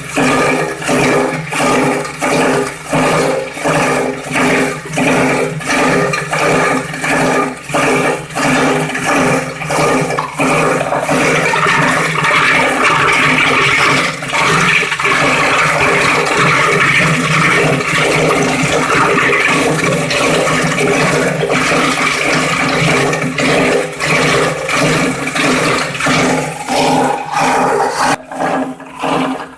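Plastic-recycling grinder running loudly, a mechanical din with a steady hum under it. For the first third it pulses about twice a second, then runs on evenly, and near the end it dips briefly.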